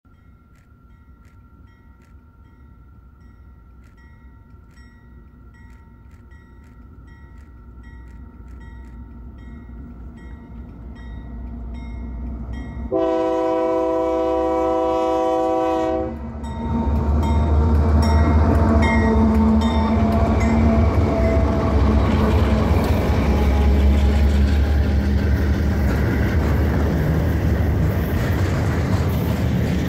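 Double-stack container train hauled by GE AC44i diesel-electric locomotives, its engine rumble growing steadily louder as it approaches. About thirteen seconds in, the locomotive horn sounds one long blast of about three seconds. The locomotives then pass with a loud, deep engine rumble, followed by the rolling noise of the container wagons going by.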